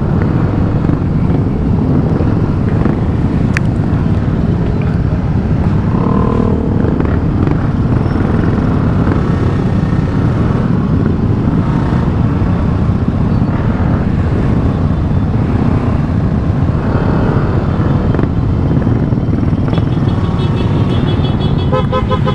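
A crowd of motorcycles idling together, a steady low rumble. Near the end a horn starts beeping in quick pulses.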